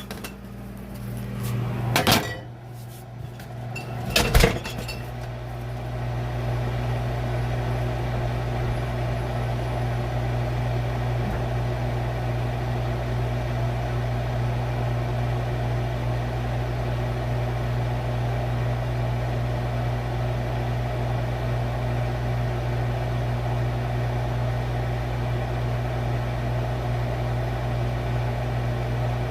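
Refrigerator door knocking shut about two and four seconds in, then the refrigerator's steady low hum heard from inside the closed fridge.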